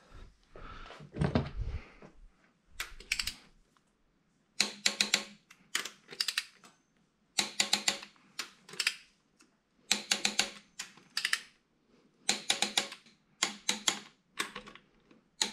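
Ratchet wrench clicking in short bursts of rapid clicks, a dozen or so with brief pauses between, as connecting-rod cap bolts on a 2JZ bottom end are run up in torque.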